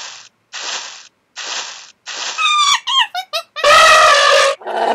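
Cartoon-style logo sting made of sound effects: three short whooshing bursts, then a quick run of squeaky falling chirps, then a loud held pitched call near the end.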